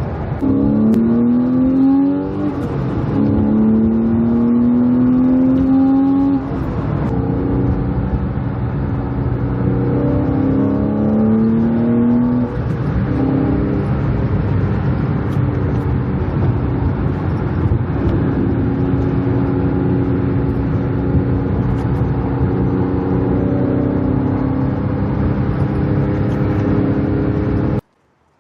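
Porsche 997 Carrera's 3.6-litre flat-six engine being driven to warm it up: the engine note rises in pitch and drops back at each upshift several times, then holds steadier while cruising. The sound cuts off abruptly near the end.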